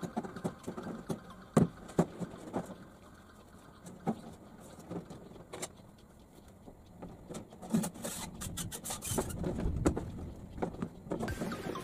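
Coiled copper refrigeration tubing of a homemade evaporator being handled and tied, with pliers at work: scattered clicks, taps and light metallic rattles.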